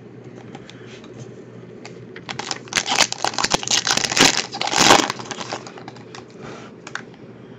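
Foil trading-card pack wrapper crinkling and tearing as it is ripped open by hand. It is a rapid run of crackles from about two seconds in to about five seconds in, loudest near the end.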